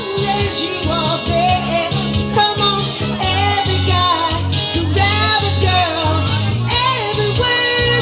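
Live duo music: a woman singing lead into a microphone over electronic keyboard accompaniment with a steady bass line.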